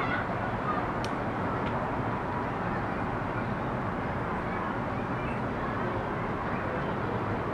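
Steady outdoor city background noise, an even low hum with no distinct events, with a couple of faint ticks about a second in.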